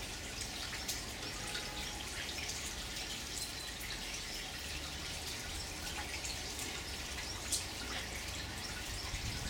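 Water from an onyx limestone fountain stone, welling up from its drilled top and trickling down over the stone's ledges into a gravel-covered basin. The water makes a steady patter of many small drips, with one louder drop past the middle.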